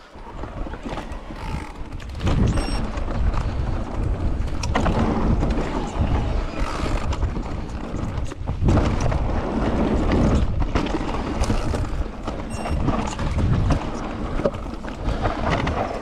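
Mountain bike riding down a dirt trail, heard from a camera mounted on the bike. Wind buffets the microphone over tyre rumble, with frequent knocks and rattles as the bike goes over bumps. It gets suddenly louder about two seconds in.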